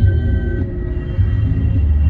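Music playing over a low, steady rumble, with a few long held tones.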